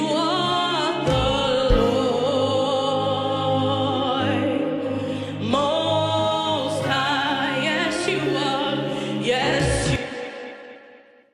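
Praise song: sung voices with long held notes over a steady low accompaniment, fading out near the end.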